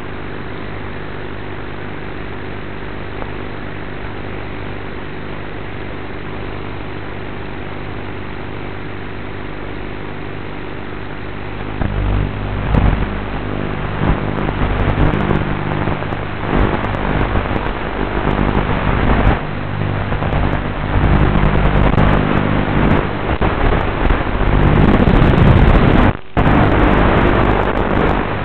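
FPV quadcopter's motors humming steadily while armed on the ground, then throttling up about twelve seconds in as it takes off, the pitch rising and falling with throttle through the flight. The sound cuts out briefly near the end.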